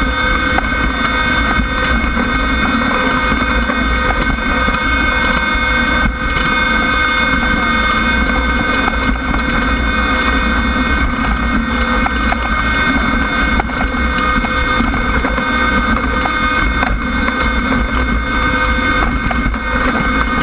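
Class 1600 off-road race car's air-cooled VW flat-four engine running at steady revs, with wind noise and light rattling over rough ground.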